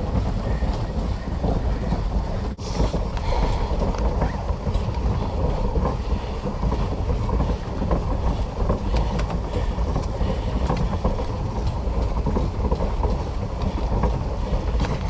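Pedal-powered paddle boat under way: the steady churning of its paddle wheel and pedal drive, mixed with wind buffeting the camera microphone.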